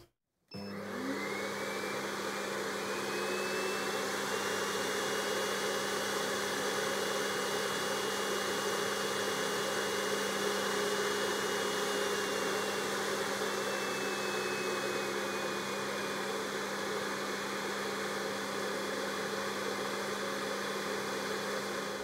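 Built-in dust-extraction vacuum of a Saeshin Strong Medi Power Pro pedicure machine, switched on about half a second in. Its fan whine rises over the first few seconds as suction is turned up toward 80%, holds steady, then eases down in the second half as the power is lowered again.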